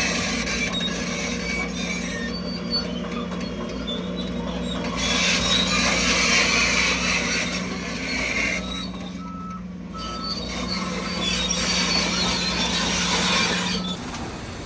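Heavy earthmoving machinery running under load, with a steady diesel hum that cuts off shortly before the end. A few short reversing beeps sound about nine seconds in.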